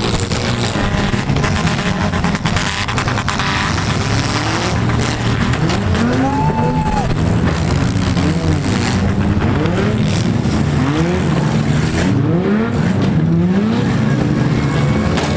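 Several compact cars' engines revving hard over and over, their pitch rising in repeated sweeps over a steady loud rumble from the pack.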